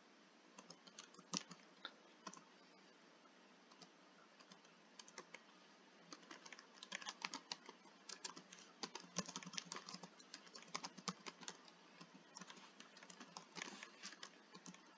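Faint typing on a computer keyboard: a few scattered key presses at first, then a steady irregular run of keystrokes from about five seconds in.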